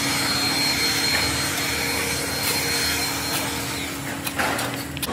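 Workshop machine running steadily: a constant motor hum and whine over a hiss, with a few sharp clicks about four seconds in.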